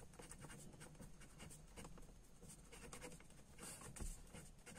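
Faint scratching of a pen writing on paper, a series of short irregular strokes as letters are formed.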